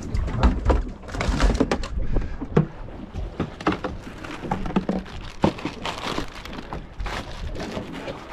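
Irregular knocks and clatter of gear and a plastic box being handled on a small boat's deck, over a low rumble of wind on the microphone.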